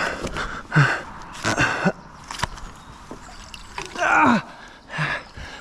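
Several short wordless vocal sounds, gasps and exclamations falling in pitch, with some water splashing and a sharp click a little before halfway.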